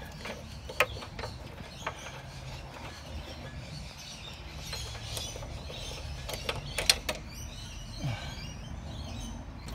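Socket wrench with an 18 mm socket on a long extension undoing an engine mount's lower bolt through the subframe: scattered metallic clicks and taps at irregular intervals as the tool is turned and shifted.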